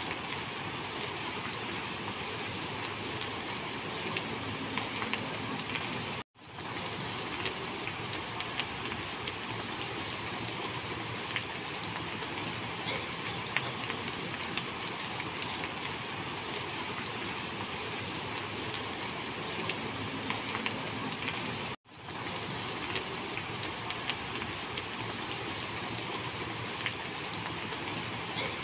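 Minced pork and chilli curry paste sizzling steadily in hot oil in a wok as it is stir-fried, with scattered small ticks. The sound drops out briefly twice, about six seconds in and again about twenty-two seconds in.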